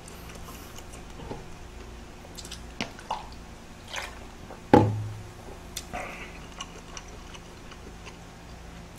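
A person drinking cola straight from a large plastic bottle, with wet mouth and swallowing sounds and scattered soft clicks. There is one short, louder sound near the middle.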